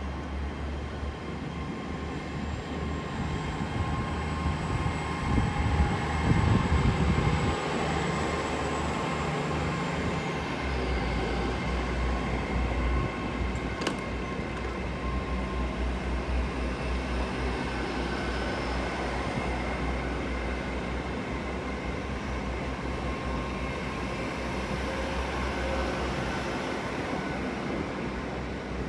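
Class 802 bi-mode train pulling out of the station on its underfloor diesel engines, with a steady low drone that is loudest about six seconds in. A high whine glides down about ten seconds in, and a single sharp click comes a few seconds later.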